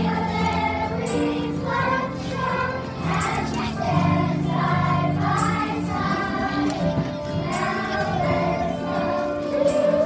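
A children's choir singing a song together with instrumental accompaniment under the voices.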